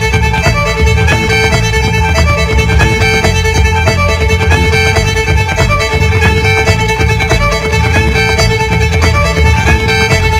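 Loud fiddle music with a steady rhythm.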